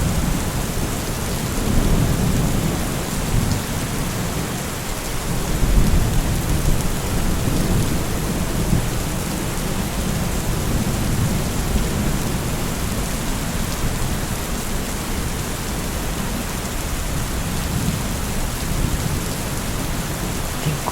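Steady rain with low rolling rumbles of thunder, swelling about two seconds and six seconds in.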